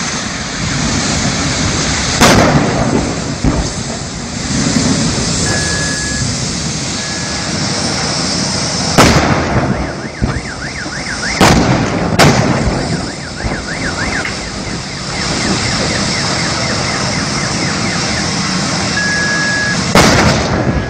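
Propane gas cylinders in a burning vehicle exploding one after another: five loud blasts, one about two seconds in, three close together around the middle and one near the end, over the steady noise of the fire. After the middle blasts an alarm warbles for several seconds.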